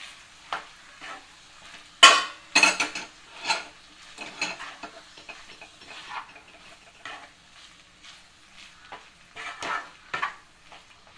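Stirring a sizzling pan of cooked chicken mince filling as blanched corn and peas are mixed in: irregular scrapes and knocks of the stirring spoon against the pan over a faint sizzle, loudest about two to three and a half seconds in.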